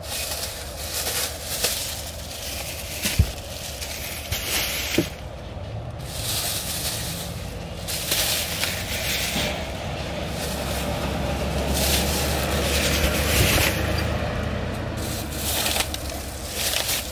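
Plastic grocery bags rustling and crinkling as they are lifted from a shopping cart and set into a car's cargo area, with a few knocks, the sharpest about three seconds in. A low steady rumble runs underneath.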